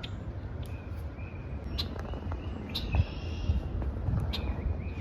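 Wild songbirds singing and calling: repeated short whistled notes and quick downslurred calls about a second apart, with a brief rattling note midway. A low rumble sits underneath.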